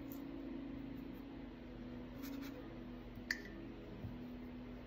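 A paintbrush clinks once against the rinse-water jar about three seconds in, a short sharp tap with a brief ring, followed by a softer knock. A low steady hum runs underneath.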